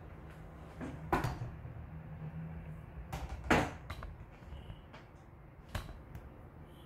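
Several short knocks and clatter of kitchenware being handled, the loudest about halfway through, over a low steady hum.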